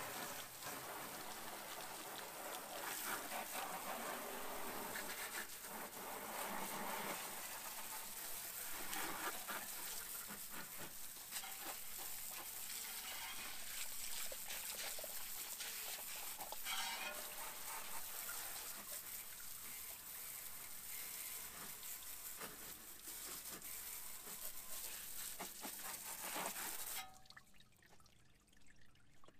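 Water spraying in a steady hiss that swells and fades as the jet moves, then cuts off suddenly near the end.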